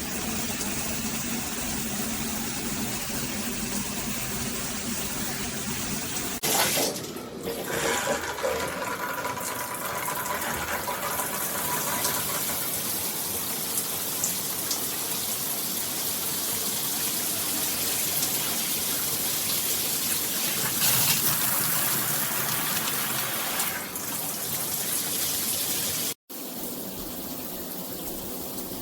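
Water spraying steadily from a Jafeton rainfall and handheld shower head combo. The rushing sound changes about six seconds in, cuts out for a moment near the end, then carries on quieter.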